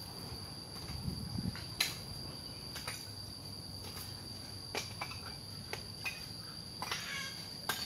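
Insects droning steadily in a high, unbroken tone, with a few sharp clicks or taps now and then over it.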